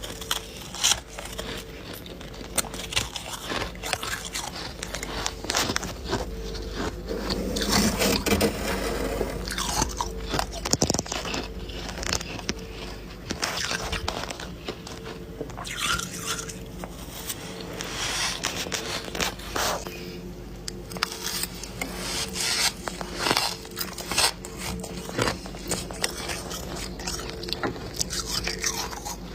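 Someone biting and chewing crunchy frost ice close to the microphone: many irregular crunches throughout, with a steady faint hum underneath.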